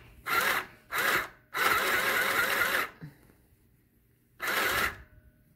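Small electric sewing machine stitching through thick fleece in four short runs, stopping and starting, the longest about a second and a half, its motor whirring with a wavering pitch.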